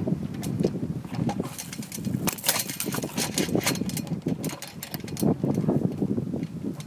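Wind buffeting the microphone: an uneven low rumble with scattered crackles.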